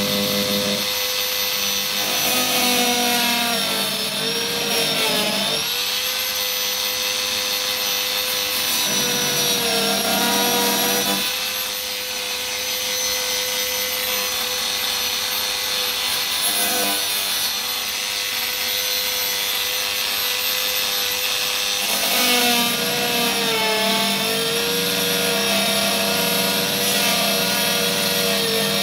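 Dremel rotary tool with a cutoff wheel, whining at high speed as it cuts through the acrylic canopy of an RV-8 kit aircraft. Its pitch dips and recovers several times as the wheel bites into the plastic.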